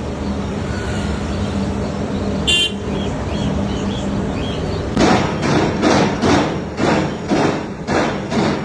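Steady street traffic noise with a short car horn toot about two and a half seconds in. From about five seconds in, a run of loud regular thuds, about two a second, takes over.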